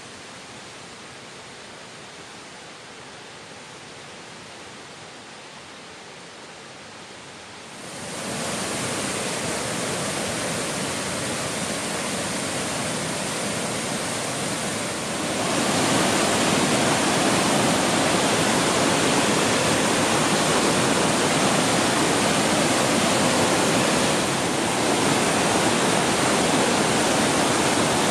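A waterfall's steady rushing roar. It grows clearly louder about a quarter of the way in and again about halfway through.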